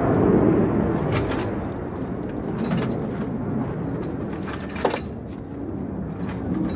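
Daytona 6-ton steel floor jack being pushed over rocky ground, its wheels grinding and rattling, with a sharp knock about five seconds in.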